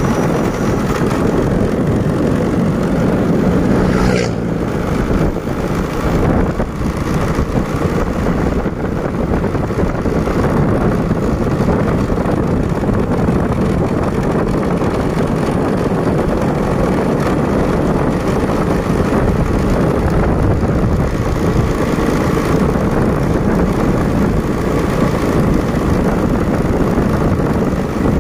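A vehicle driving along a road: steady engine and road noise that runs on without a break, with a short knock about four seconds in.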